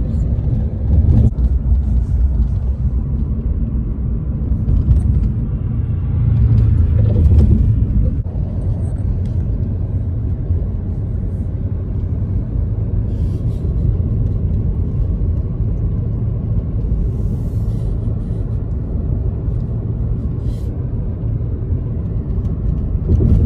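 Steady low road rumble of a moving car, heard from inside the car, with a few faint ticks.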